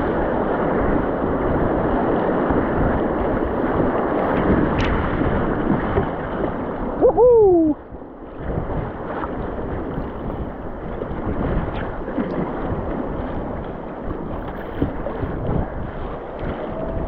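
Rushing whitewater and wind buffeting the microphone as a kayak runs a rapid. About seven seconds in, a short voice cry falls in pitch; it is the loudest sound, and a brief dip in the noise follows it.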